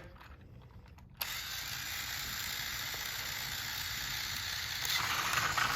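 Battery-powered Plarail toy train switched on about a second in, its small electric motor and plastic gearing running steadily.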